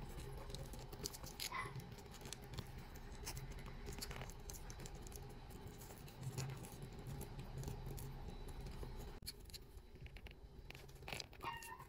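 Faint scratching and small clicks of a small plastic toy doll and its clothes being handled by fingers, over a low steady hum.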